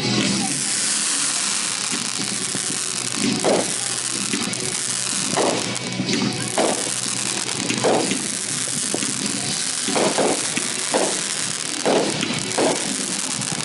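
Consumer fireworks going off: a steady hissing spray with short pops every second or two.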